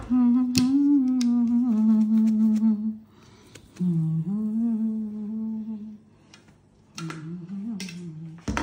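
A woman humming a slow tune in three long phrases of drawn-out notes, with a few light clicks and knocks in between.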